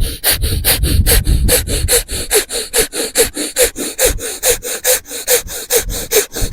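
Kapalbhati pranayama: rapid, forceful exhalations snorted out through the nose, about five a second in an even rhythm. The breathing is used to blow the last water out of the nostrils after jal neti nasal rinsing.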